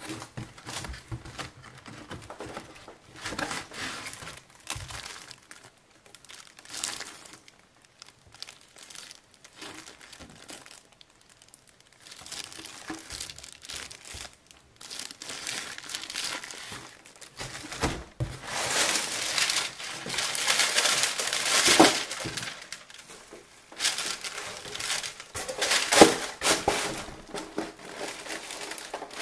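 Plastic packaging crinkling and rustling in irregular bursts while items are handled out of a cardboard box, with a few knocks. It is busiest and loudest in the second half.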